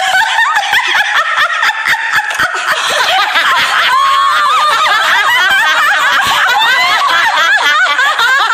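Several women laughing loudly together, high-pitched and overlapping, with sharp clicks through the first few seconds.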